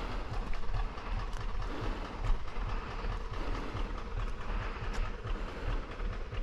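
Tractor diesel engine running steadily with a low, regular beat, with scattered clicks and knocks over it.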